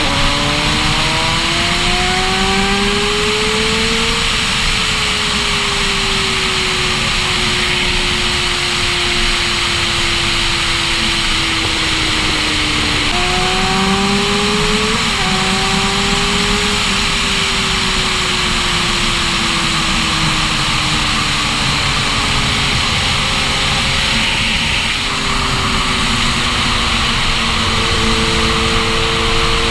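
Sport motorcycle engine under way at highway speed with heavy wind rush. Its pitch climbs over the first few seconds as it accelerates, jumps up sharply about halfway through, then slowly sinks as the rider eases off and holds a steady cruise.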